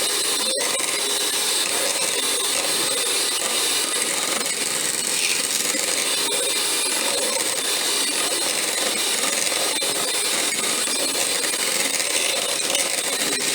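Electric hand mixer running steadily, its beaters whipping a thick, partly solidified hair-grease mixture.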